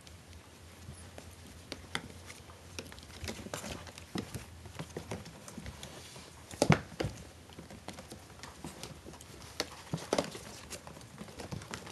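Four-week-old Maltese–Shih Tzu cross puppies scrambling over each other, their small paws and claws pattering and tapping in scattered, irregular clicks, with a louder knock a little past halfway.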